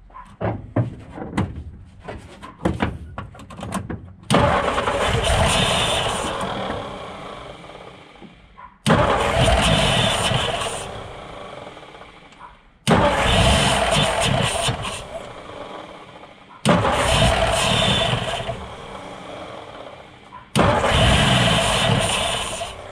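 The 1958 Ford panel truck's engine being cranked over by its starter in five spells of about four seconds each, each starting abruptly and fading. Before the first spell come a few short clicks and knocks.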